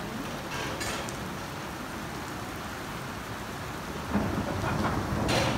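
Rain falling steadily, with a louder low rumble coming in about four seconds in.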